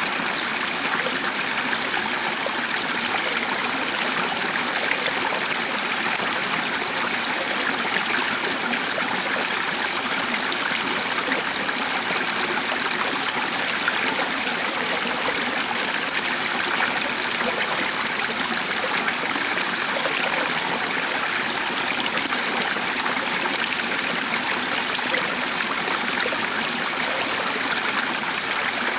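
Stream running steadily: an even rush of flowing water.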